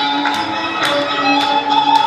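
Polish highlander folk music led by fiddle, with sustained notes and sharp taps about twice a second.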